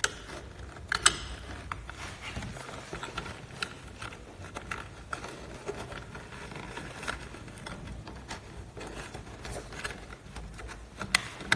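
Plastic terminal cover being handled and fitted over a refrigerator compressor's starter and overload protector: scattered light clicks and rattles, with sharper clicks about a second in and near the end.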